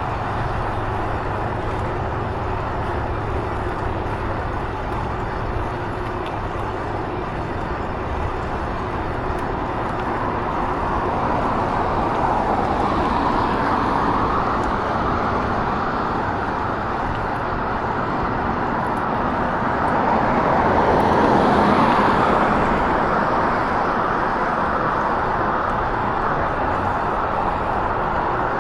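Steady road traffic noise, with vehicles passing about twelve seconds in and again more loudly about twenty seconds in.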